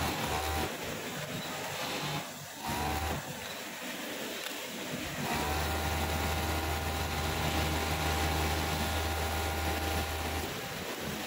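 Industrial overlock (serger) machine stitching and trimming the edge of denim, its motor running in bursts: briefly at the start, again briefly about two and a half seconds in, then steadily from about five seconds in until it stops near the end. Each run starts with a short rising whine.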